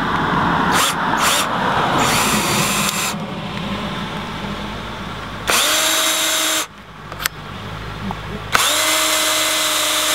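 DeWalt cordless drill driving screws at an angle through a board into a wooden post. It runs under load with a grinding sound for the first few seconds. Then come two shorter bursts of steady whine, one about halfway through and one near the end.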